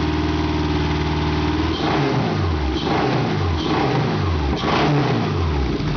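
Subaru EJ25 2.5-litre flat-four engine on a test stand idling, then blipped by hand at the throttle about four times in quick succession from about two seconds in, each rev rising and falling back. The idle has a miss, which the owner puts down to a bad injector or two, or to vacuum leaks from hoses just pushed together.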